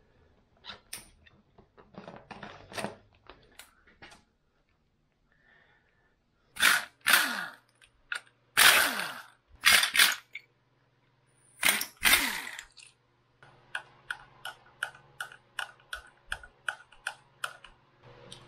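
Cordless power driver run in five short bursts, each whirring up and then winding down in pitch as the trigger is let go, backing out bolts on a Yamaha YZ250F engine. Light handling clicks come before the bursts, and an even run of clicks at about three or four a second follows them.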